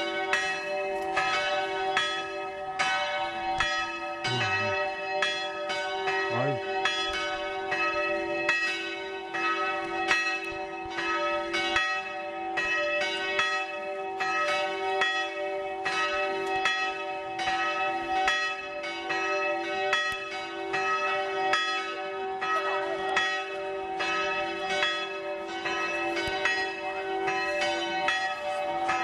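Church bells ringing in a continuous peal, struck about twice a second, with several bell pitches ringing on together between strikes.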